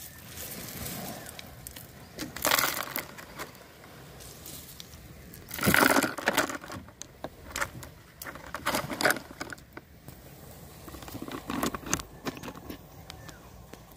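Irregular crunching and rustling with scattered sharp clicks: a nylon gill net being handled and pebbles shifting underfoot. Louder bursts come about two and a half and six seconds in.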